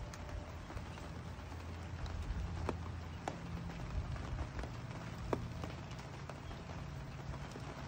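Steady spring rain falling on a wet wooden deck and patio furniture: an even hiss with scattered sharp drips landing close by. A low rumble sits underneath.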